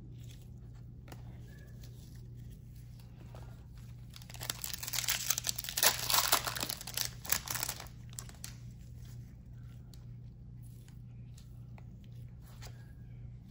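Foil wrapper of a 2020 Topps Chrome Garbage Pail Kids card pack being torn open, crinkling and tearing for about three seconds starting about four seconds in. Before and after, only light clicks of cards being handled over a steady low hum.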